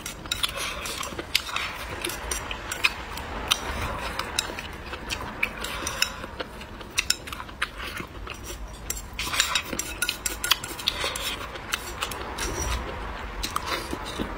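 Close-up eating sounds: chopsticks clicking and scraping against a ceramic bowl, mixed with chewing and mouth noises. Many sharp, irregular clicks run throughout.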